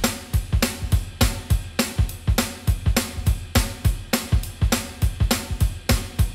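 Background music: a steady drum-kit beat with kick drum, snare and hi-hat.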